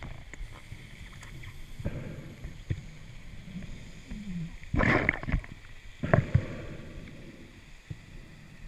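Scuba diver breathing through a regulator underwater: rushing bursts of exhaled bubbles, the loudest about five seconds in and shorter ones near two and six seconds, over a low steady underwater background.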